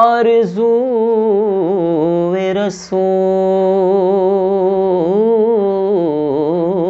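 Solo male voice singing an Urdu naat with no instruments, stretching a word over long held notes with wavering, ornamented pitch and a short break for breath about three seconds in.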